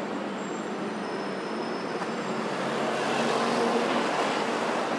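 Road traffic on a busy multi-lane city boulevard, a steady wash of engine and tyre noise that grows louder about three seconds in as vehicles come closer.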